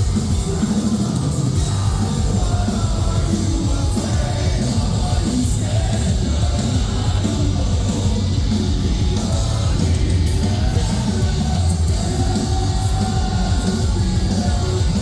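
Metalcore band playing live at full volume: dense, heavy distorted guitars, bass and drums, with a shouted and sung vocal line over them.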